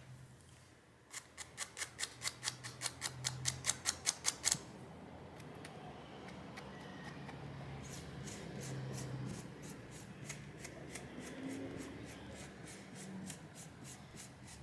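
Toothbrush bristles scrubbed in short, rapid strokes over a phone's rear camera recess, brushing out loose glass shards. A fast run of scratchy strokes, about six a second, lasts a few seconds; fainter brushing strokes start again past the middle.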